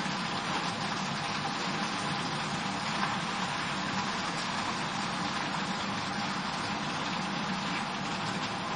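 Steady hiss from a gas stove with a frying pan of sliced pumpkin and potato cooking in mustard oil, even and unbroken.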